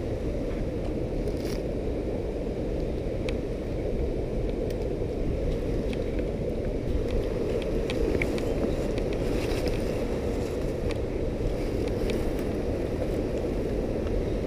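Steady low rumble of wind buffeting the camera microphone, with faint scattered clicks.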